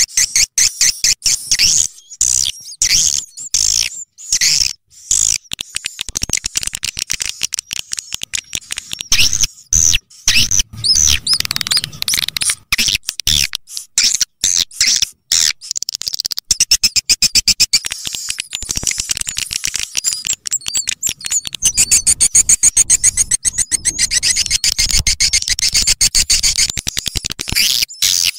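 Swiftlet lure call recording: rapid, high-pitched chirping and twittering of swiftlets in quick trains of short calls, growing into a denser, steadier twitter in the second half. It is the call sound played through loudspeakers to draw swiftlets into a nesting house.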